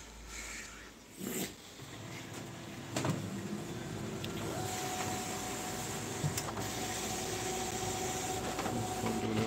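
Konica Minolta bizhub 226i copier starting up its motors. A steady mechanical whir builds about two seconds in, with a click about a second later, and a steady hum-like tone joins about halfway and holds.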